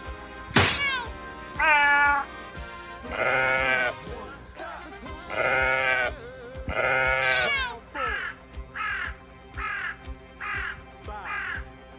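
Animal-call sound effects over background music: a quick falling whistle, then three drawn-out bleating calls, then a run of short falling cries about two a second.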